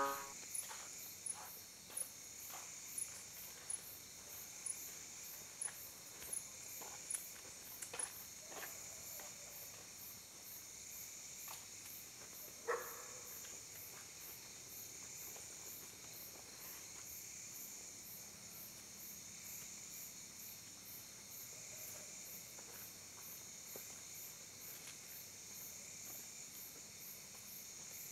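Faint night-time insect chorus: crickets chirring steadily, with a high pulse repeating about twice a second. Light knocks come roughly once a second over the first eight seconds, and a sharper knock about 13 seconds in.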